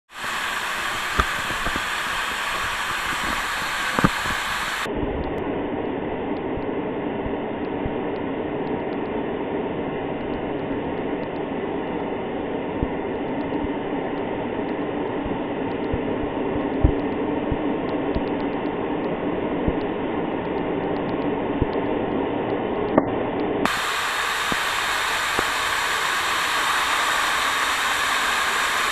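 Lower Lewis Falls rushing steadily, heard from behind the falling curtain as the water pours into the plunge pool. A few sharp ticks stand out over the rush.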